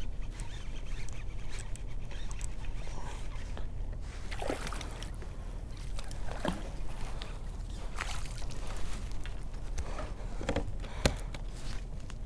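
Water lapping and sloshing against a plastic fishing kayak's hull over a steady low rumble, with scattered small knocks and clicks and one sharper click near the end.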